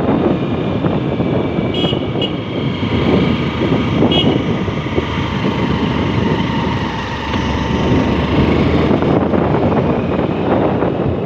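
Steady rumbling road noise of a moving vehicle with wind rushing over the microphone.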